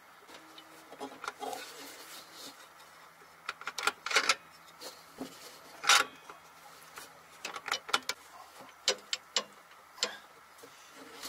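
Metal engine front cover being pushed and worked onto the engine block by hand: scattered clicks, knocks and scrapes, the sharpest about four and six seconds in and a run of quicker taps later on.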